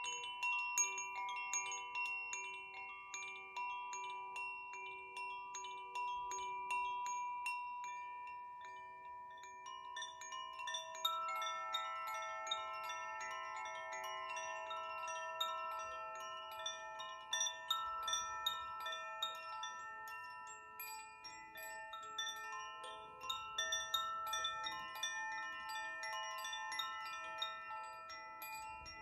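Hand-held bamboo Koshi-style chimes gently swung, their tuned metal rods tinkling and ringing in overlapping sustained notes. One chime sounds at first, and a second chime with a different set of notes joins about ten seconds in.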